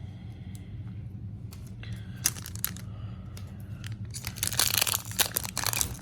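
A trading-card pack wrapper crinkling and being torn open, with the crackling growing much louder and denser about four seconds in.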